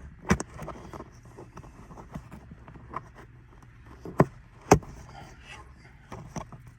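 A few sharp knocks and clicks over a faint steady background, the loudest one just after the start and two more about four to five seconds in, from hands working on a car's interior fittings.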